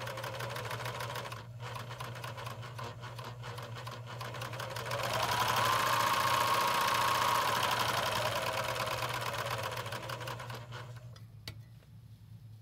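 Tacony Companion SergeMate 5040L serger running empty with its looper mechanism exposed. It runs at a moderate speed, then speeds up about five seconds in with a rising whine. It then slows and stops near the end.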